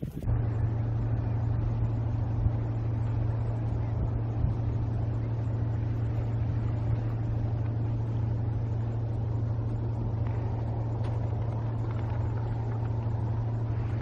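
A steady, low mechanical hum, like a motor running, starting abruptly just after the start and holding unchanged.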